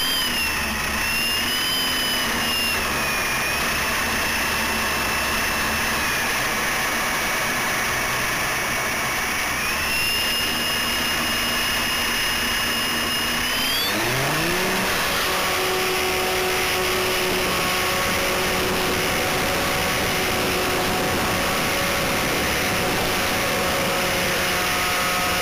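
A GWS Stearman RC model biplane's electric motor and propeller running, heard from on board: a steady whine that wanders in pitch over a constant rush of air. About halfway through, the high whine drops away and a lower tone climbs, then holds steady: a throttle change, with the model airborne by the end.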